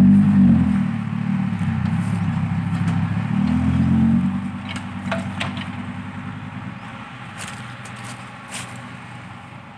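Diesel engine of a loaded dump truck pulling away along a dirt track, its note climbing twice under load and then fading as the truck drives off.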